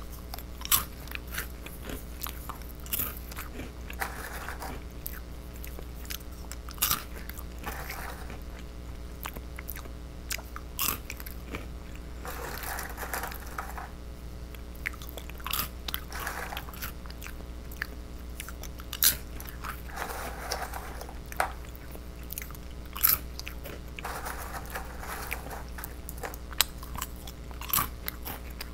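Close-miked crunching and chewing of small fish-shaped crackers. Sharp crunches come irregularly, every second or two, between softer chewing.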